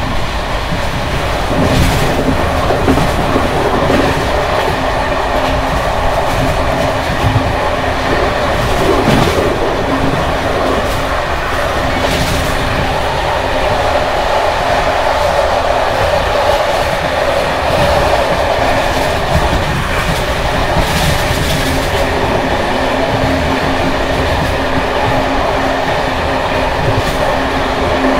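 Loud rattling run of a ČD Bd264 passenger coach on worn Görlitz V bogies over rough jointed track, heard through an open window: a steady rolling noise with a low hum underneath and several sharp knocks over the rail joints. The uploader says the brake rigging bounces on these bogies, long overdue for major maintenance, and that this makes the ride very noisy.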